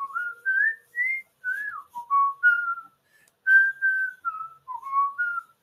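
A person whistling a short, wandering tune: a string of quick notes, some sliding from one pitch to the next.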